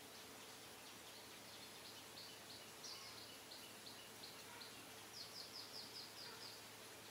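Faint bird chirps over a steady quiet hiss: single short high notes, then a quick run of about seven notes a little after five seconds in.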